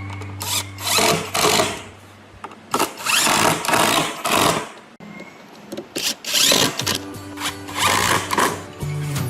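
Several short bursts of a small power tool running briefly, over background music.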